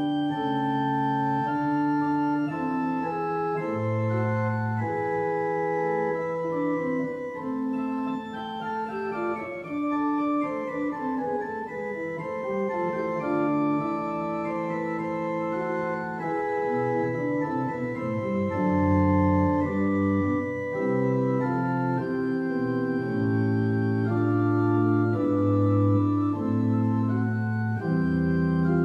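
Solo keyboard music: a prelude in A minor played with held chords under a moving melody, with a quick run of notes about a third of the way in.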